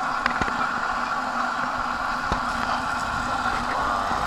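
Steady mechanical hum with a few light clicks.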